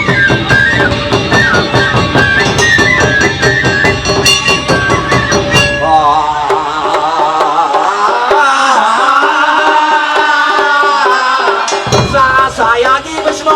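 Live Japanese traditional folk music: taiko drums beating fast under high melodic lines. About halfway through the drums drop out, leaving a wavering melody, and they come back briefly near the end.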